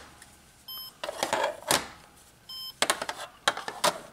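Scrabble Flash electronic letter cubes: hard plastic cubes clicking and knocking together as they are slid and swapped, with two short electronic beeps from the cubes, about a second apart.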